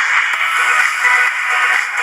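Background music: an electronic track with high synth tones.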